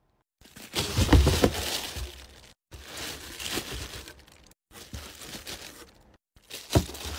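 Clear plastic-wrapped bags and wallets crinkling as they are handled and set down into a cardboard shipping box, with a thump against the cardboard about a second in and another near the end. The sound comes in short pieces separated by brief dead silences.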